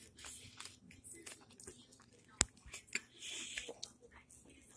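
A person chewing food close to the microphone: small wet mouth clicks and smacks, with one sharp click about two and a half seconds in.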